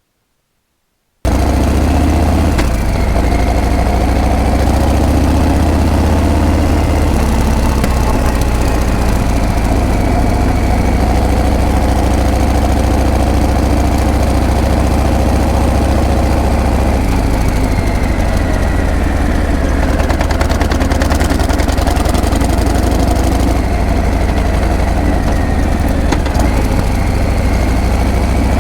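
Harley-Davidson Breakout's V-twin engine and exhaust running while the motorcycle is ridden, cutting in suddenly about a second in and carrying on loud and steady, its note shifting a few times.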